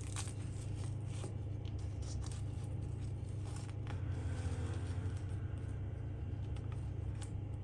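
A steady low hum with a few faint clicks and light scrapes scattered over it.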